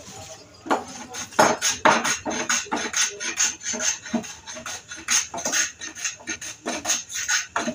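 Hand plane shaving the edge of a wooden panel in quick back-and-forth strokes, about three a second, each a dry rasping scrape.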